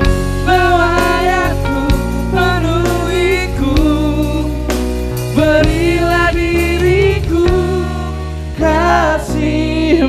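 A man and a woman singing a slow love song as a duet into microphones, with a live band of electric guitar and keyboard playing along through the sound system.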